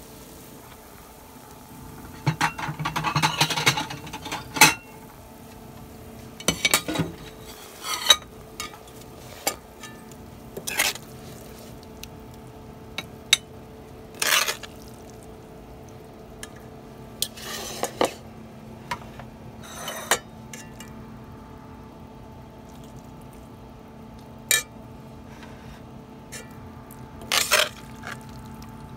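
Metal spatula scraping and clinking against a wok, stirring and scooping minced meat and tofu out onto a plate. The strokes are irregular, with a longer run of scraping a few seconds in.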